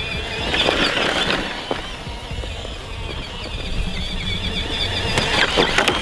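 Electric RC monster truck driving over rough ground in two spurts, about half a second in and again near the end, its motor whirring and its tyres scrabbling. A steady high chirping runs in the background.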